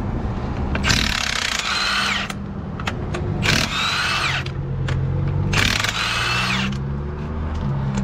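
Power tool undoing the 24 mm half-shaft fixings on a truck's drive axle, run in three bursts of about a second each, its whine dropping as each burst ends. An engine runs with a steady low hum underneath.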